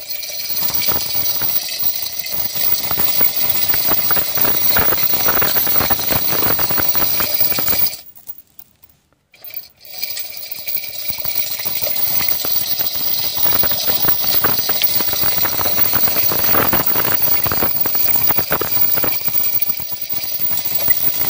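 Chain block's chain rattling and clinking as it is worked to lower a submersible pump on its pipe into a borewell. It stops briefly about eight seconds in.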